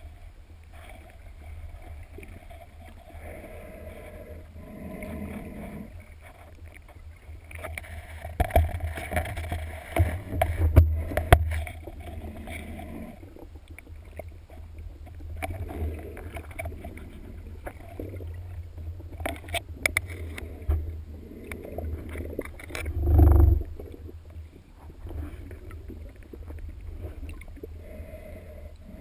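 Muffled underwater sound heard through a waterproof camera housing: a low rumble of moving water with swells of noise every couple of seconds, a few sharp clicks, and one heavy thump about twenty-three seconds in.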